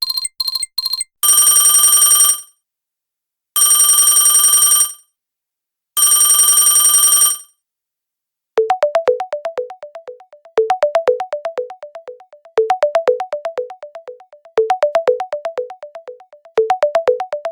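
Electronic phone-ringing sound effects: a few quick beeps, then three long buzzing rings with pauses between them, then a short plucked ringtone melody repeating about every two seconds.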